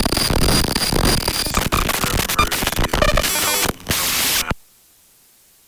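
Loud burst of harsh electronic static and distortion, crackling throughout, with a few steady high whistles in its first part. It breaks briefly a little after three and a half seconds and cuts off suddenly about four and a half seconds in, leaving a faint hiss.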